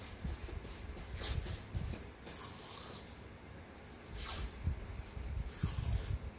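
White athletic tape being pulled off the roll and wrapped around a wrist: several short peeling rasps a second or two apart, with low handling noise between them.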